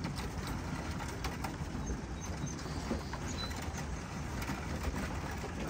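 Racing pigeons cooing and shuffling about at the loft's trap, with scattered light knocks over a steady low rumble.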